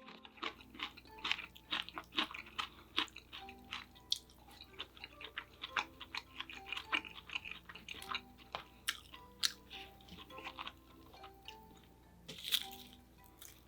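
Close-miked eating: repeated chewing and crunching of food, many short wet clicks, over soft background music.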